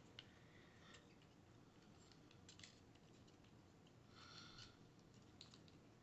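Near silence with faint scattered clicks and a brief soft rustle a little after four seconds, from small craft parts being handled.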